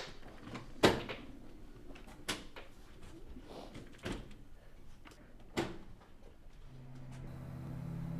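A door being handled: one sharp clunk about a second in, then three softer knocks spread over the next few seconds. Low sustained music with bowed strings fades in near the end.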